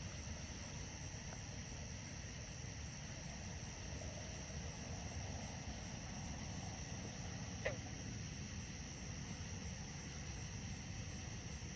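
A steady high chorus of night insects such as crickets over a low, even background hiss, with one short chirp about eight seconds in.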